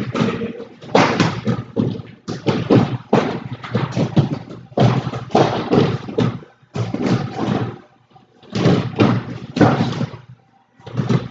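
Gloved punches and kicks landing on a freestanding heavy bag, in quick bursts of several thuds with short pauses between combinations.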